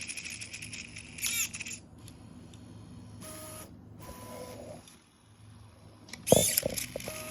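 A CoreXY 3D printer's stepper motors whine as the toolhead moves. A servo whirs briefly about a second in. About six seconds in, the servo whirs again with a loud clack as the tool changer's locking mechanism works during a tool pickup or drop.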